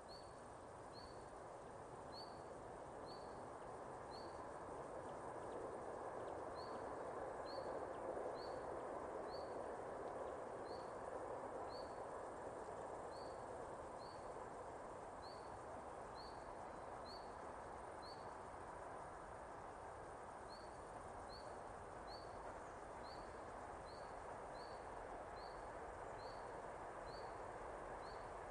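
A bird repeating a short rising chirp about once or twice a second, with a couple of brief pauses, over a low rushing noise that swells for the first several seconds and then holds steady.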